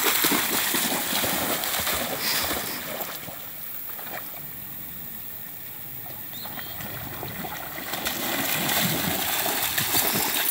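German Shepherd puppy running through shallow creek water, splashing. The splashing is loudest as it bounds off at the start, drops to softer water sounds while it wades farther away, then grows loud again as it runs back near the end.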